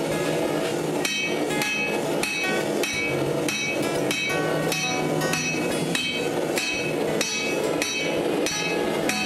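Hand hammer striking a red-hot railroad spike on an anvil, forging it out, in a steady rhythm of about two to three blows a second. Each blow rings briefly and metallically, over a steady rushing noise underneath.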